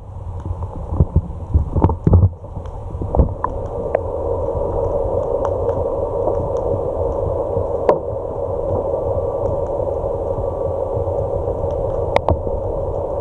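Muffled underwater noise heard through an action camera's waterproof housing: a few knocks and bumps in the first three seconds, then a steady hum.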